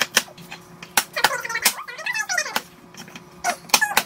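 Chef's knife dicing bell pepper on a plastic cutting board: scattered sharp chops, with a quick run of several near the end. A brief wordless voice sound comes in the middle.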